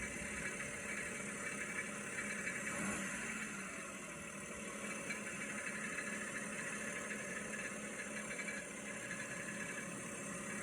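Kei car engine idling steadily.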